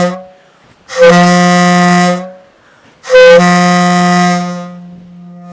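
Train horn blowing one steady low note in long blasts: the end of one blast, then a blast of about a second and a half, then a longer one that fades over its last two seconds before cutting off.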